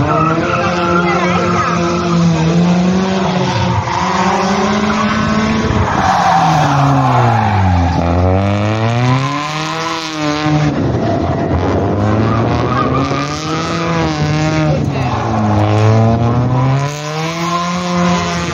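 A car engine in a hatchback, revving hard up and down as the car is driven through a cone slalom course. The revs sweep up and fall back repeatedly, dropping lowest about eight seconds in before climbing again, with tyre squeal at times.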